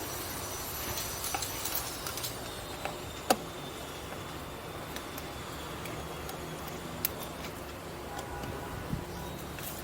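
Mitsubishi 4G64 four-cylinder engine idling under the open hood: a steady low hum and hiss, with a few sharp clicks over it, the loudest about a third of the way through.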